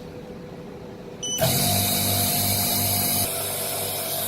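OkaMaster K6H Pro phone-screen laminating machine starting its cycle. A short beep comes just over a second in, then the machine starts running with a steady hum and hiss. The hiss drops away about two seconds later while the machine keeps running.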